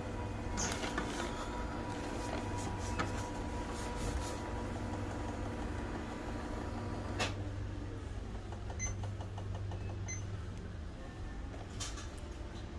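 Oki MB562 laser printer running with a steady motor hum that stops with a click about seven seconds in, followed by two short electronic beeps. Plastic bag rustling and handling clicks come and go.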